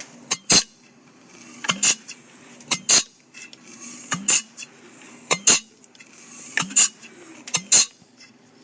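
Rebuilt Mazda 13B rotary engine being turned over by hand, each compression stroke building as a rising whoosh of air and ending in sharp metallic clicks, mostly in pairs, about once a second; the sound shows the rotors sealing and holding compression.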